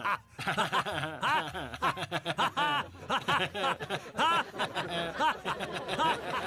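Several voices giggling and chuckling one after another, the laughter overlapping and spreading from person to person through a crowd: contagious laughter started on purpose by one person's giggle.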